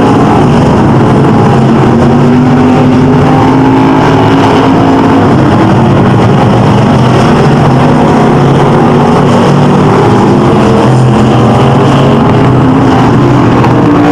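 Dirt-track stock car engines running together as the cars lap the oval. The sound is very loud and steady, with several engine pitches slowly rising and falling.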